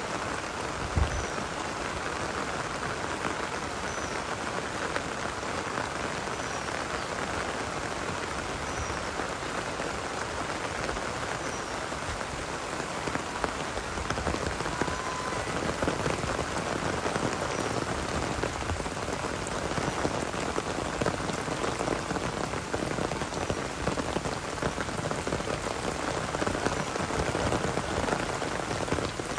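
Heavy rain falling steadily, growing a little louder about halfway through, with a faint short high chirp repeating every couple of seconds.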